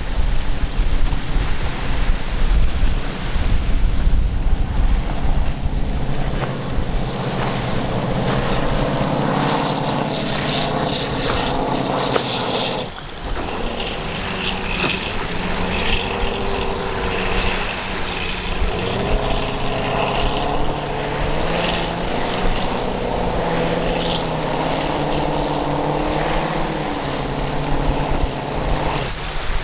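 High-performance speedboat's outboard engines running hard through rough swells, their pitch rising and falling as the throttle and load change, over the rush of spray and surf. Heavy wind buffets the microphone through the first several seconds.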